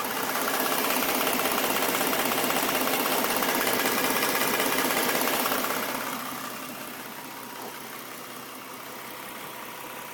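2011 Ford Mustang's 3.7-litre V6 idling, with a rapid, even ticking knock that the owner suspects comes from the passenger-side cylinder head. It is louder for the first half and drops off about six seconds in.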